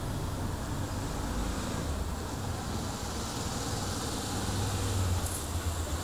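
A car engine running with a steady low rumble.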